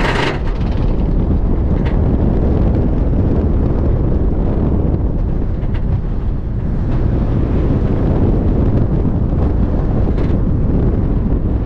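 Wind buffeting a camera mounted on the back row of a Rocky Mountain Construction steel roller coaster, over the steady low rumble of the train running down the track after cresting the lift hill; the brighter lift-hill noise cuts off just after the start.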